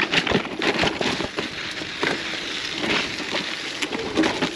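Gravel bike rolling slowly over a rocky trail: tyres crunching on grit and rock, with many irregular clicks and rattles from the bike.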